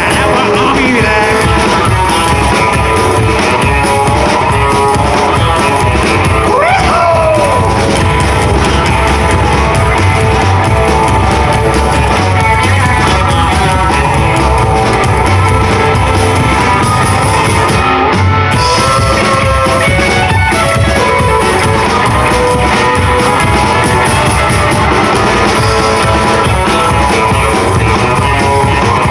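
A rockabilly band playing live, loud and steady, with singing over guitar, bass and drums, and a sliding note about seven seconds in.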